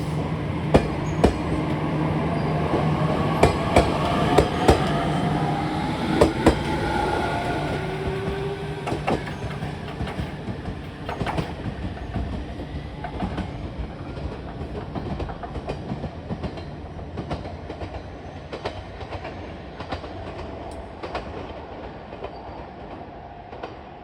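Two-car JR Kyushu 815 series electric train pulling away from a station. Its motors whine, rising in pitch over the first several seconds, while the wheels clack over the rail joints. The clacks come faster as it speeds up, and the whole sound slowly fades as the train moves off.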